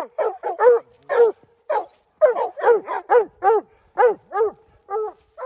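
Young hound barking treed at the base of a tree, a fast run of short, pitched barks at about two to three a second: the chop of a squirrel dog treeing, signalling that a squirrel is up the tree.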